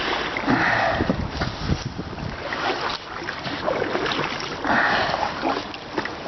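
Water sloshing and splashing around a kayak, in two stronger surges with a few light knocks from the boat.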